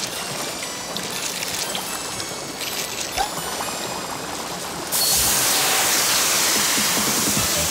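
Cartoon water sound effect: a softer flowing-water sound with faint light music, then about five seconds in a sudden, louder, steady rush of gushing water as the characters' onion tears spray out in jets.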